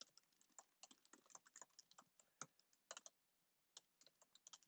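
Computer keyboard typing: quick, irregular keystrokes, faint, with a brief pause a little past three seconds in.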